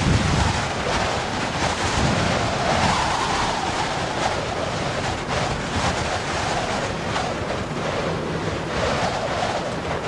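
Wind blowing across a field of green grass: a steady rushing that swells and eases a few times, with low buffeting of wind on the microphone in the first couple of seconds.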